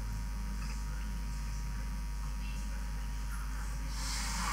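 Steady low mains hum on the recording, with a short burst of noise about four seconds in.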